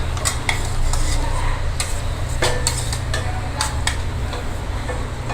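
Metal spoon scraping and clinking against steel pots and plates, with a handful of sharp clinks scattered through, over a steady low hum.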